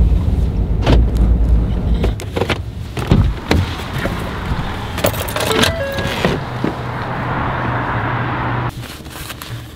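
Truck cab sounds: a low engine and road rumble while driving, then a run of clicks and knocks as the door is opened, followed by a steady rushing noise that cuts off near the end.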